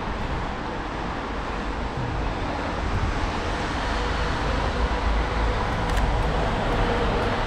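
Steady outdoor urban background noise: a low rumble with hiss. There is a faint click about six seconds in.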